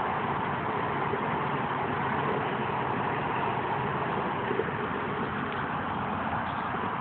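Steady outdoor background noise: a constant rumble and hiss like nearby road traffic, with no distinct events.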